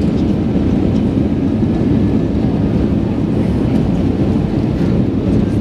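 Steady cabin noise of an Airbus A320 on short final: engine and airflow rumble heard from inside the cabin over the wing, loud, low and even, as the aircraft crosses the runway threshold before touchdown.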